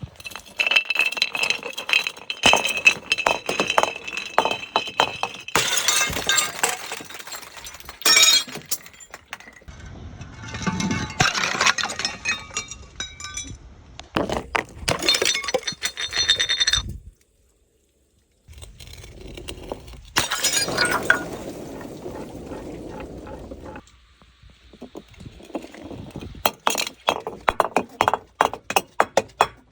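Glass bottles clinking, breaking and shattering in a run of separate short takes, with shards crunching and scattering. The first few seconds ring with clinking glass, and the sound drops out completely for about a second and a half a little past halfway.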